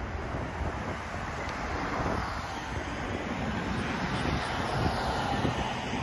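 A car passing, its tyre and engine noise swelling about two seconds in and fading near the end, over steady traffic noise with wind buffeting the microphone.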